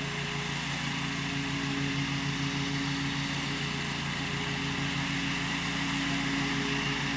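Bad Boy Rambler 42-inch zero-turn mower engine running steadily under mowing load, with an even, unchanging note.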